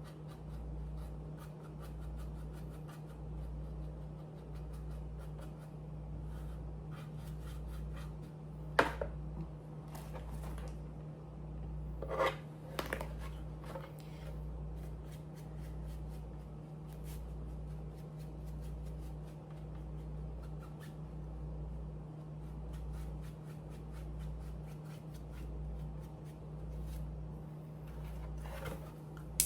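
Faint rubbing and scratching of hand work on a 3D-printed helmet, with a few sharper taps about a third of the way in. A steady low hum that pulses a little more than once a second runs underneath.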